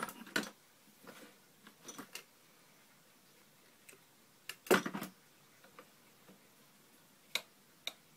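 Scattered clicks and knocks of small objects being handled at a lathe, with the loudest cluster about halfway through and two sharp clicks near the end.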